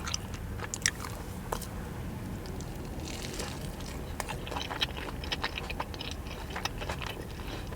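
Close-up chewing of a breaded chicken tender wrap, with scattered small crunches and moist mouth clicks.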